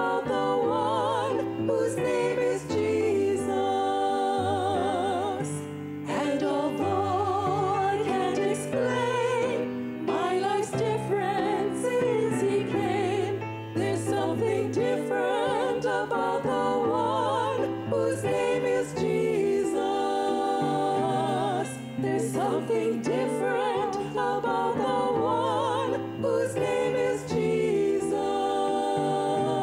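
Women's voices singing a sacred song with wide vibrato, accompanied by piano.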